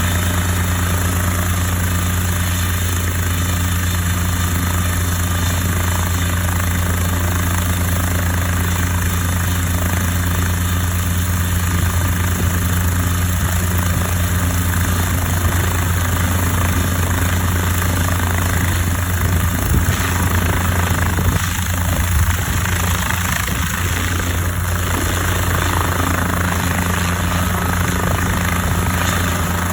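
Guimbal Cabri G2 helicopter running steadily at flight power: a loud, deep, even hum from the rotor and piston engine, with a second steady tone above it.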